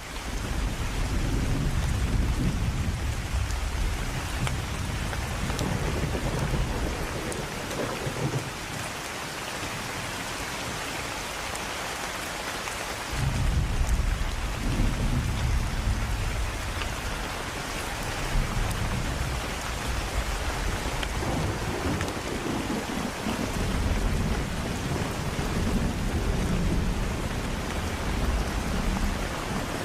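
Steady rain with thunder rolling in low rumbles, starting abruptly. The thunder eases off about a third of the way through, then builds again and keeps rumbling.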